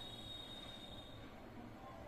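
Quiet room tone: a faint steady low hum, with a faint high whine that fades out a little over a second in.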